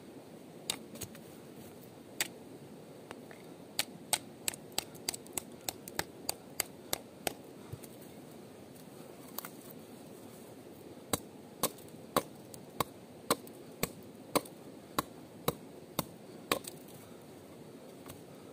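Chopping: sharp strikes at about two a second, a few scattered at first, then two longer runs with a pause of a few seconds between them.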